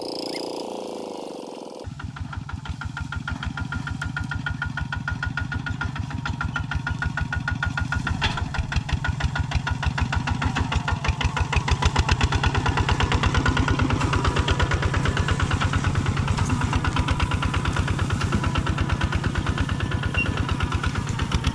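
Two-wheel walking tractor's single-cylinder diesel engine running under way with a rapid, even chug, starting abruptly about two seconds in. It grows louder as the tractor draws near, then holds steady.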